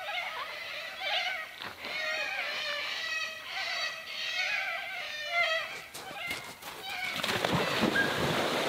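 Birds calling in short, repeated chirping phrases. About seven seconds in, a loud splash and rushing water as a person jumps into a waterhole.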